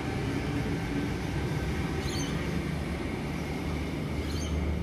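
Double-deck Sydney Trains Tangara electric train running past along the platform, its wheels rumbling steadily on the rails. A low electric hum grows stronger about four seconds in as another train approaches. Two brief high chirps come through, one about two seconds in and one near the end.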